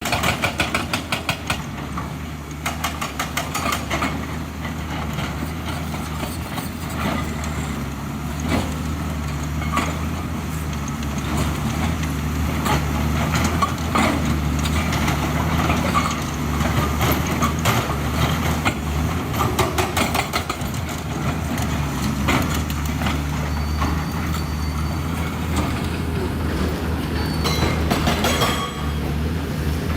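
Hydraulic excavator's diesel engine running steadily, with frequent knocks and clanks over it.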